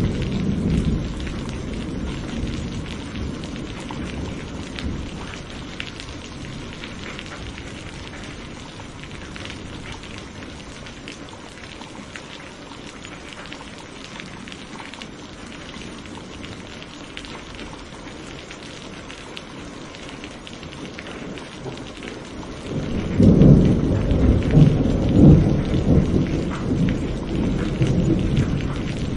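Steady rain pattering on foliage, with rolling thunder: a roll dying away in the first few seconds and another, louder rumble building about three quarters of the way through.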